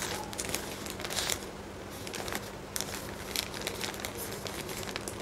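Plastic packet of disposable period panties crinkling as it is handled and turned over in the hands, with irregular crackles.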